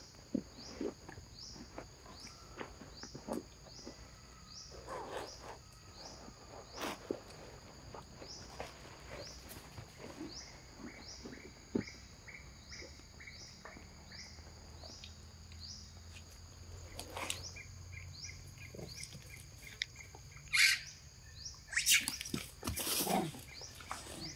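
Outdoor forest ambience: a steady high chirping repeats about three times every two seconds, with scattered clicks and short animal noises from macaques. Near the end come a few louder rustles and knocks.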